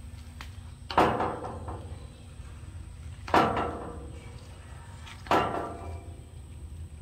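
A plastic spreader dragged through body filler across a steel dash panel: three scraping strokes about two seconds apart, each starting sharply and trailing off.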